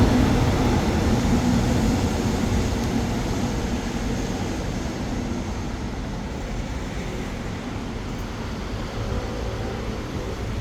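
A train running, a steady rumble with a low hum that fades gradually as it draws away.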